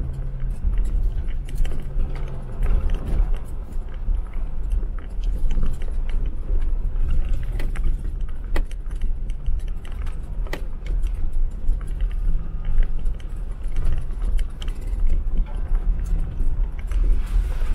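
Jeep Wrangler driving over a rough snowy off-road track: a steady low rumble of engine and tyres, with constant loose rattling and clicking over it.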